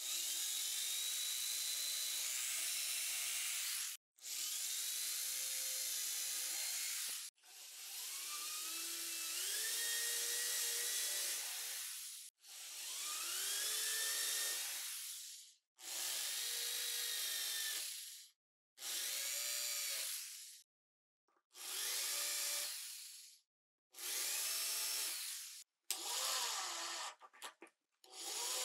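Electric hand drill running in a series of bursts of two to four seconds each, its motor whine rising and falling in pitch with the trigger as it drills pilot holes and drives wood screws into timber. Near the end the bursts shorten into quick stuttering pulses.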